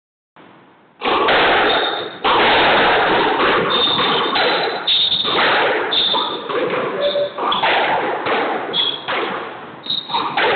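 Squash rally: the hard rubber ball smacks off rackets and the court walls while the players' court shoes squeak in short, high chirps on the hardwood floor. The sound cuts out briefly at the very start.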